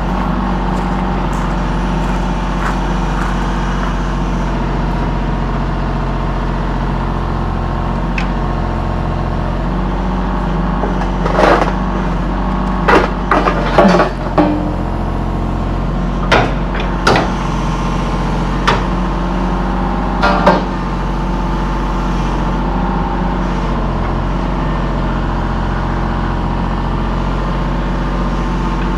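Diesel engine running steadily. A run of sharp metallic clanks and knocks comes between about 11 and 21 seconds in, as heavy equipment is loaded.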